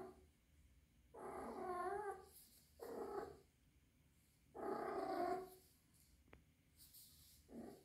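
Three-month-old kitten yowling in drawn-out calls with a wavering pitch, four in a row with pauses between, the last one short. The owner wonders whether this is the calling of a kitten in heat.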